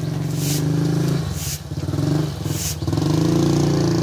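A motor engine running, its pitch and loudness rising and falling as it revs, with a short hiss high up about once a second.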